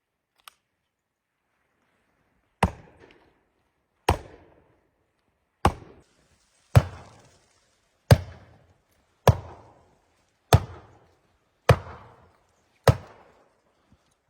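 A series of nine hard chopping strikes, about one to one and a half seconds apart, each followed by a short crumbling tail.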